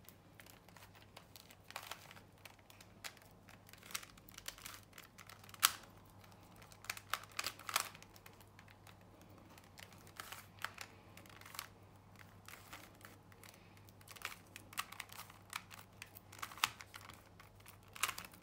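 Rubik's Cube layers being turned by hand: irregular plastic clicks and rattles, some sharper than others, as the solver works through moves on the cube.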